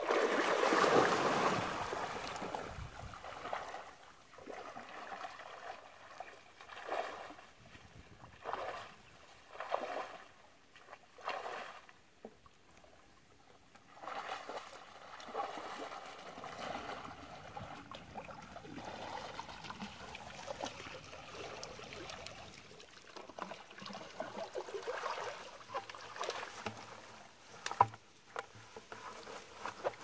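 Water sloshing and splashing in irregular bursts as a person wades through a shallow canal. The loudest burst is in the first couple of seconds.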